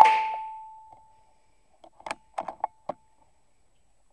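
An air rifle fires with one sharp crack, followed by a ringing tone that fades away over about a second and a half. About two seconds in comes a quick run of five or six short mechanical clicks and knocks.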